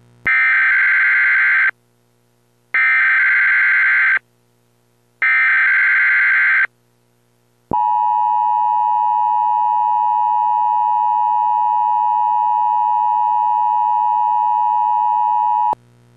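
Emergency Alert System broadcast opening. Three short screeching bursts of SAME digital header data, each about a second and a half long and about a second apart, carry the coded High Wind Warning. Then the EAS two-tone attention signal holds a steady, harsh tone for about eight seconds and cuts off suddenly.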